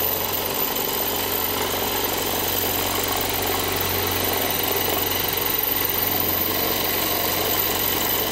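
Cordless drill running steadily, its bit boring into the metal lock cylinder of a safe deposit box.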